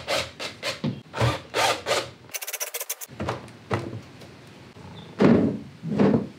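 Knocking and rubbing as a clear plastic windshield is worked loose from a boat's console, with a short run of rapid ticking a little past two seconds in and two louder thumps near the end.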